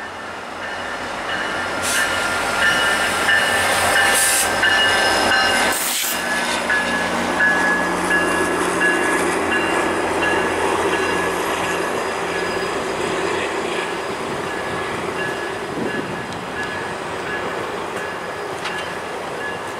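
GO Transit MP40PH-3C diesel-electric locomotive and bilevel passenger coaches rolling into a station and slowing, with a thin high metallic squeal coming and going as the train brakes. The sound grows louder over the first few seconds as the locomotive draws level, then the coaches rumble steadily past and slowly fade.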